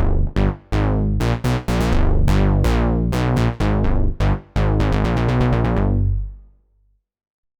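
Roland SH-201 synthesizer playing an analog-style bass patch: a rhythmic line of short notes, each starting bright and quickly dulling. A last held note fades out about six seconds in.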